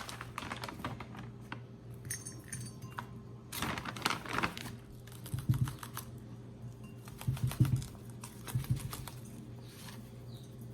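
Chunky orchid potting mix being poured and scooped into a pot: irregular clusters of light rattling clicks and crackles.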